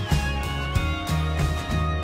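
Background music with a steady beat and a plucked guitar.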